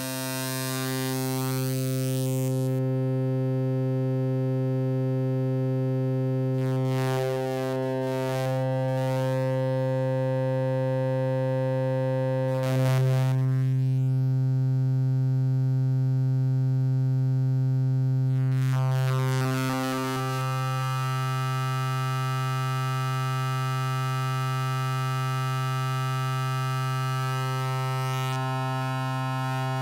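A single sustained note from the Serum software synthesizer, held at one low pitch while its waveform is redrawn by hand. It starts harsh and buzzy, full of high harmonics from a jagged wave, turns soft and sine-like after about two and a half seconds with brief bright flickers as the shape is redrawn, and grows brighter again in the last third as sharp edges return to the wave.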